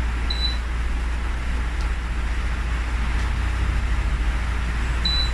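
Two short high beeps from the electric ceramic stove's touch-control panel as its timer is set, one about a third of a second in and one near the end, over a steady low rumble.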